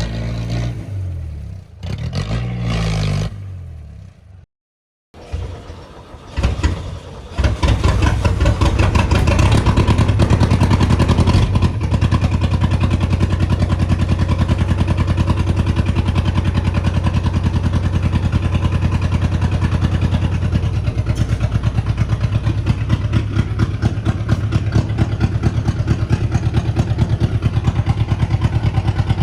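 Music for the first few seconds, then after a short gap the ARO 4x4's 3.2-litre engine is started and runs with a fast, even pulsing. It runs a little higher for a few seconds, then settles to a steady idle about 12 seconds in.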